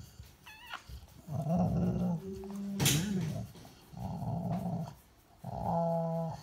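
Rottweiler grumbling in four low rumbling growls of about a second each, the breed's affectionate 'purr' while being cuddled, a sign of contentment rather than aggression. A sharp noisy burst about three seconds in is the loudest moment.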